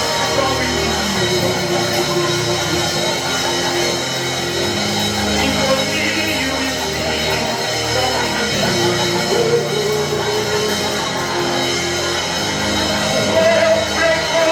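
Live worship band playing a slow, sustained instrumental passage with keyboard chords, bass and drums.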